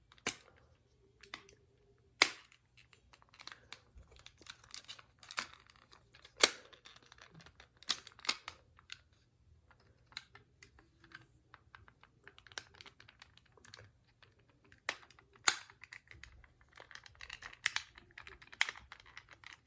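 Irregular clicks, taps and small knocks of hard plastic toy parts being handled and fitted together while a toy's helmet is worked back into place, with a few sharper clicks standing out.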